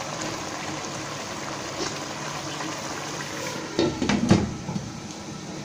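Mutton curry sizzling and simmering in a nonstick wok, then a glass lid set down onto the wok with a short cluster of clinks and knocks about four seconds in.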